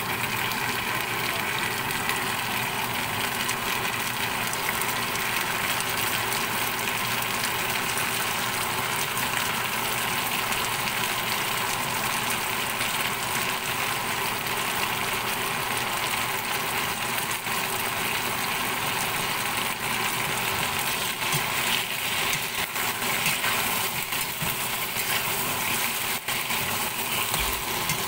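Vegetables frying in oil in a wok with a steady hiss, with spatula stirring and scraping against the pan in the last part.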